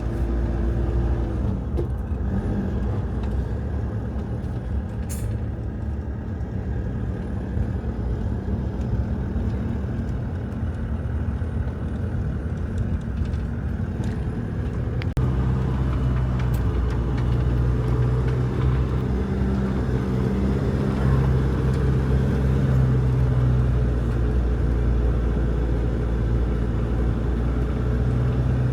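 Motor vehicle running on the road: a steady low engine drone with road noise, its engine note changing abruptly about halfway through.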